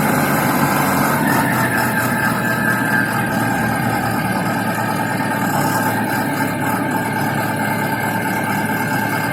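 Diesel engine of a self-loading concrete mixer truck running steadily, with a higher-pitched whine joining in about a second in.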